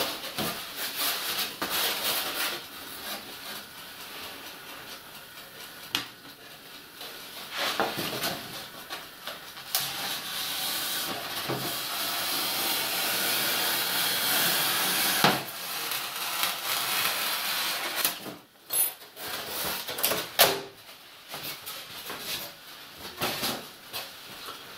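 Rigid foam insulation board being handled: rubbing and scraping noises with scattered knocks, and a longer steady hiss about halfway through as the sheet is slid and lifted.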